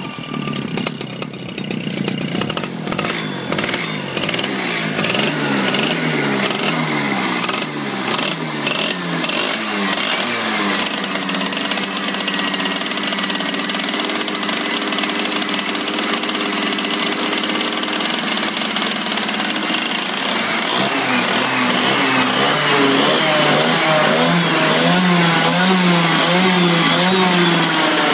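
Comer K-80 80cc two-stroke kart engine running on the stand just after starting. It runs unevenly for the first few seconds, then is blipped repeatedly by hand at the carburettor, so its pitch keeps rising and falling.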